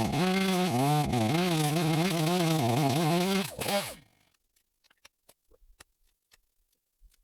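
Chainsaw running at high revs while cutting dead white oak, its pitch dipping and recovering under load, then shut off about four seconds in. Faint scattered ticks and clicks follow.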